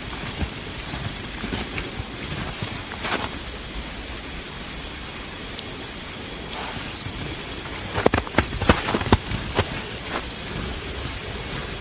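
A steady noisy hiss with scattered crunches of snow and snapping twigs, and a quick run of sharp cracks about eight seconds in: movement through snow-covered brush.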